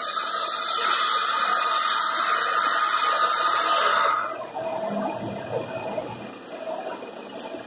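Sliding table panel saw cutting through a white cabinet board: a loud hissing cut over a steady blade whine. The cut ends about four seconds in, and the saw runs on more quietly, its blade spinning free.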